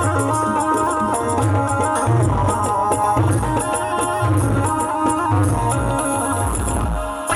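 Instrumental interlude of Rajasthani devotional folk music: a sustained melody line over a steady, repeating drum beat, with no singing.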